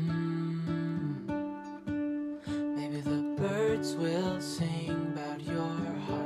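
Background music led by plucked and strummed guitar.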